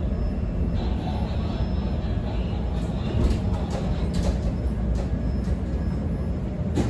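Inside a CTA 5000-series rapid-transit car: the steady low rumble of the car running on the rails, with a few short clicks and knocks.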